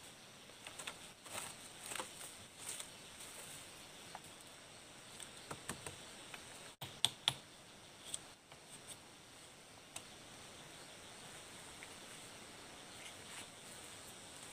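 Bamboo stakes and vine being handled and tied onto a wooden log: faint, scattered clicks, taps and rustles, with a couple of sharper knocks a little after halfway.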